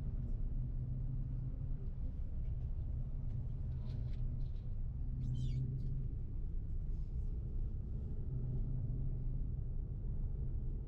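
Coach bus engine droning steadily, heard from inside the passenger cabin. A brief high squeak comes about halfway through.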